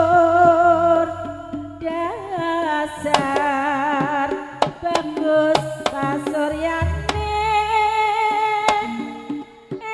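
Live Javanese jaranan music: a singing voice holding long, wavering notes over sharp hand-drum strokes, with deep low tones under the start and again about two-thirds of the way through.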